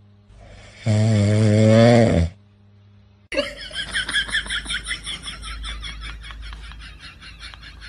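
Dog snoring: one long, deep snore about a second in. About three seconds in it gives way to a quieter, fast pulsing sound with a low rumble under it.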